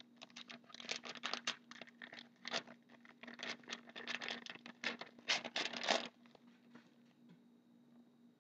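A hockey card pack's wrapper being torn open and crinkled in the hands: a dense run of quick crackles for about six seconds, then it quietens.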